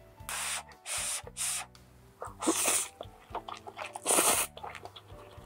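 A person slurping stir-fried cup noodles off chopsticks: five short slurps, the longest and loudest about four seconds in, with chewing between them.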